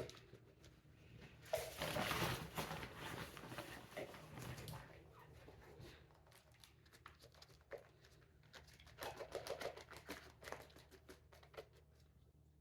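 Soft rustling and crumbling of damp potting soil being handled and pushed into small biodegradable seed pots, in two separate bursts with light taps and clicks between.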